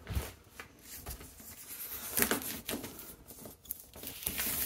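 Scattered rustles and light knocks of a cheap picture frame being handled in its plastic wrapping.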